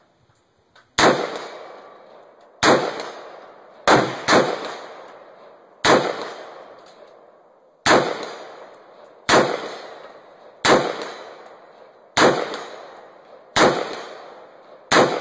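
Colt 901 rifle in 7.62 mm fired semi-automatically: eleven single shots, most about a second and a half apart with one quick pair, each ringing out and fading over a second or so.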